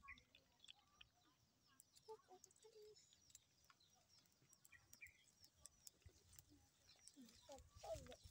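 Near silence: faint outdoor ambience with scattered small bird chirps and a few light clicks.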